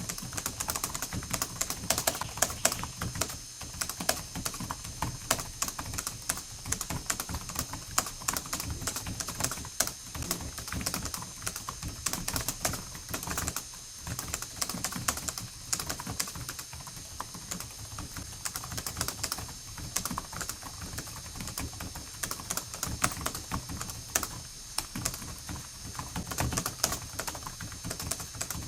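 Fast, continuous typing on a computer keyboard: a dense, unbroken run of keystroke clicks.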